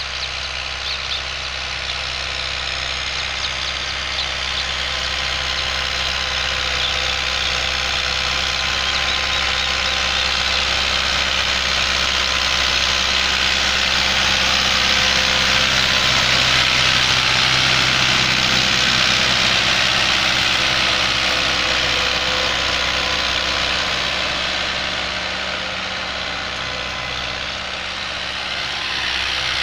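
Fiat 640 tractor's four-cylinder diesel engine running steadily under load as it pulls a cultivator through the soil. It grows louder as the tractor passes close by about halfway through, then fades as it moves away.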